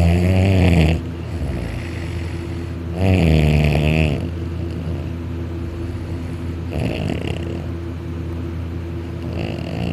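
A person asleep snoring loudly: two loud, pitched, wavering snores about three seconds apart, then two fainter snores later on, over a steady low hum.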